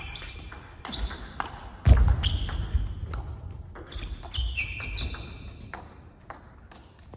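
Table tennis rally: the ball clicks off paddles and the table in quick succession, with short squeaks of shoes on the court floor and a heavy thud about two seconds in, echoing in a large hall. The clicks stop near the end as the rally ends.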